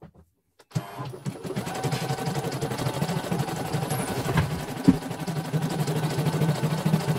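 CNY computerized embroidery machine starts stitching about a second in, then runs on with a steady, rapid rattle of needle strokes as the hoop carriage moves the fabric.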